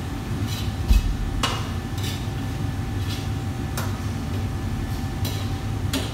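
Metal clanks of a utensil against a wok, several at irregular intervals, over the steady rumble of a commercial kitchen's gas wok burners and ventilation; a dull thump about a second in is the loudest moment.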